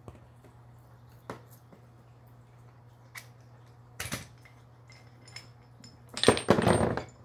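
Metal tool and control-arm parts clicking and clinking as a pin is worked into place with a press tool: a few single clicks, then a loud burst of rapid metallic clattering about six seconds in.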